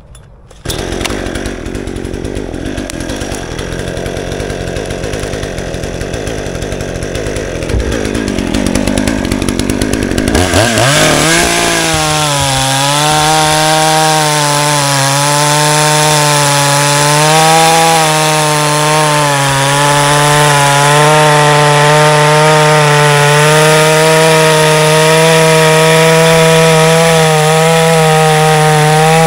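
Cheap Chinese-made two-stroke petrol chainsaw cutting into wood, starting suddenly and running loud and rough under load. About ten seconds in, its pitch climbs and then holds as a steady high engine note at full throttle.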